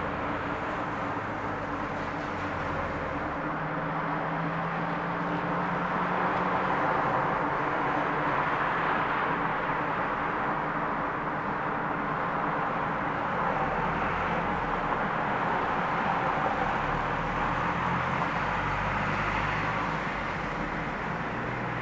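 Steady background hiss with a low rumble that swells and fades at times, and a faint hum for a few seconds near the start.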